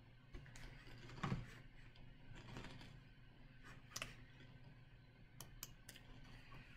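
Faint room hum broken by a few soft computer-mouse clicks, three of them close together near the end, and one dull bump about a second in.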